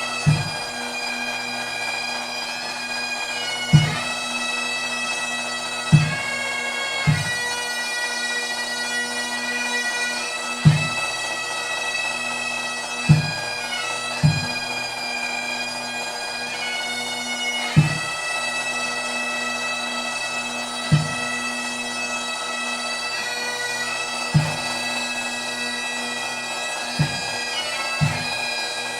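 Bagpipes playing a slow tune over their steady drones, with a deep drum beat struck every two to three seconds.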